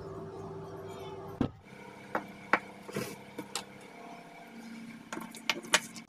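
A ceiling fan motor with a newly fitted bearing spun by hand, turning freely with a faint steady whir for about a second and a half. Then come several scattered clicks and knocks as the parts are handled.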